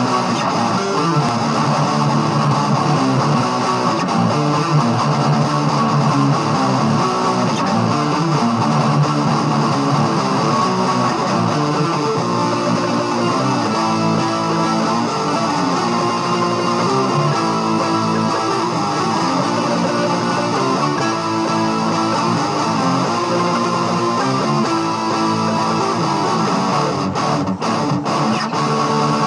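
Strummed guitar music played live, with no singing, running steadily.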